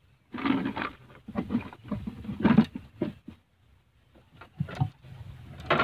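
A small baung catfish being handled and taken off the hook in a wooden boat: a string of short, irregular bursts of sound, busiest in the first three seconds, with a few more near the end.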